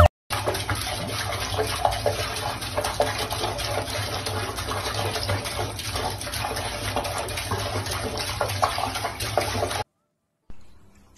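Water running steadily from a tap and splashing below, cutting off abruptly near the end.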